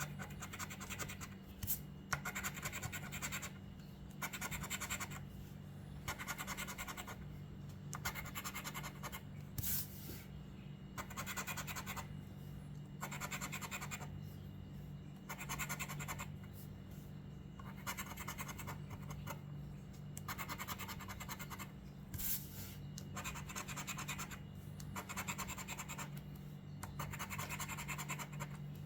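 Scratching the silver coating off a lottery scratch-off ticket: repeated short rubbing strokes with brief pauses between them, over a steady low hum.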